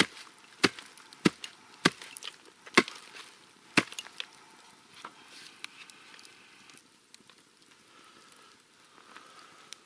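Sharp wood-on-wood knocks, about six in the first four seconds, as a wooden pot-hanger pole and its supporting stick are knocked and set into place on a cooking stand over a campfire; after that only faint rustling.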